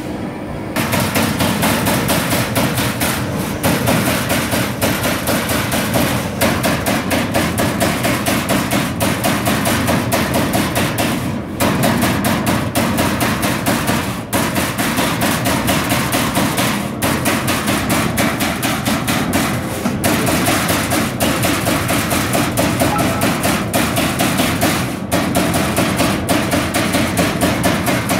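CNC turret punch press punching sheet metal: a fast, steady run of sharp metallic punch strokes, several a second, with a few brief pauses between runs.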